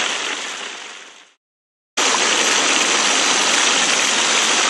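Steady hiss of water like heavy rain or a rushing stream, from a stock sound-effect track. It fades out over the first second or so, drops to silence for about half a second, and cuts back in abruptly about two seconds in.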